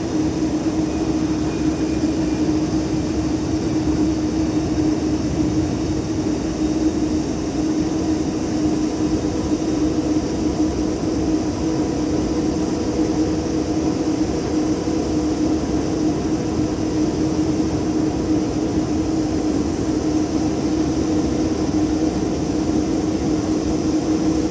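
Steady jet engine drone of a Boeing 777 airliner, with a constant low hum held at one pitch and no rise or fall in loudness.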